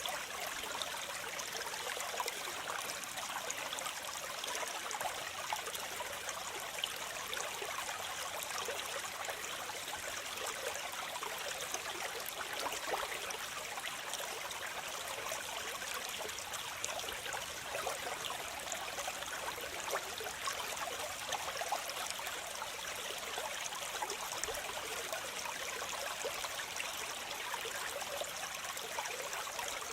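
Waterfall: a steady, even rush of falling and splashing water, mostly hiss and splash with little deep rumble.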